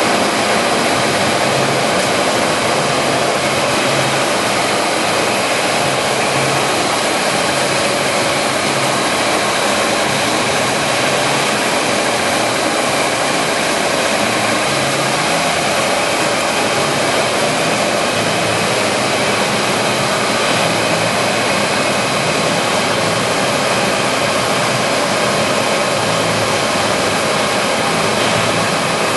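Monarch Model 62 heavy-duty engine lathe with a 20 hp main drive, running steadily at 500 RPM while taking a test cut on a metal bar: a constant machine noise with faint steady whining tones.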